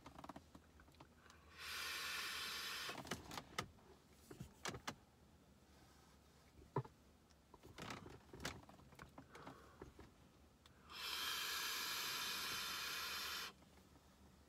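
Hits drawn from a Geekvape Nova vape kit at 70 watts: a steady hiss of air pulled through the tank with the coil sizzling, once for about a second and a half a couple of seconds in, and again for about two and a half seconds near the end. Scattered soft clicks and pops fall between the two draws.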